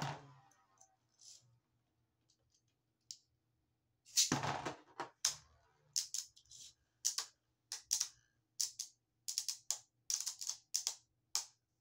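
Two Beyblade Burst spinning tops clacking against each other in a plastic stadium: one loud clatter about four seconds in, then a run of sharp clicks, about two a second, as they keep striking each other.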